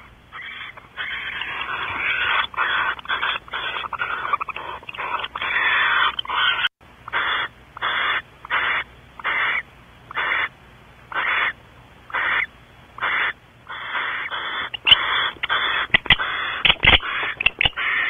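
Barn owl giving raspy, hissing snore calls, crowded together at first and then repeated as separate hisses a bit more than once a second. A few sharp knocks near the end come as the owl bumps against the nest-box camera.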